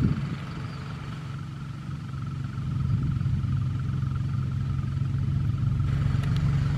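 A steady, low engine drone that grows louder about two and a half seconds in.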